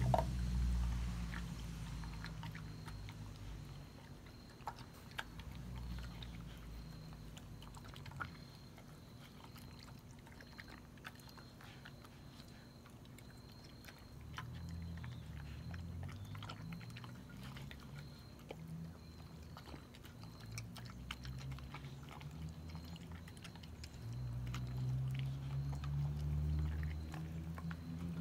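A beagle eating dry kibble from a stainless steel bowl: scattered crunches and the click of pellets against the metal. A low hum underneath swells at the start, again around the middle, and again near the end.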